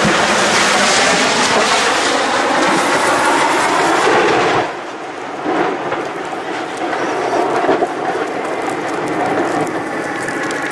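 Loud, steady rushing roar of the Tu-22M3 bomber crashing and burning, which drops off sharply about four and a half seconds in. After that a quieter rushing continues with scattered crackles and clicks.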